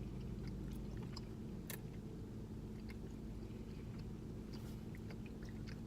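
Faint chewing of a Starburst fruit chew, with scattered small wet mouth clicks over a steady low hum.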